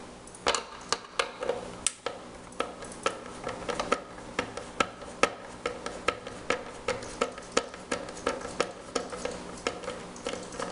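Phillips screwdriver backing a long screw out of a Hayward pool vac's plastic housing: a steady run of light clicks, about two or three a second, as it is turned.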